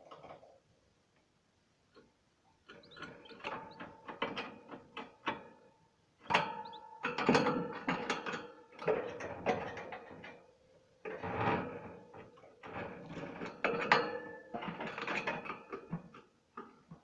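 Canary bathing in a small bird bath, splashing and fluttering its wings in the water in repeated rattling flurries separated by short pauses.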